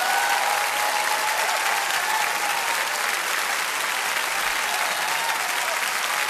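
Crowd applauding: steady, dense clapping.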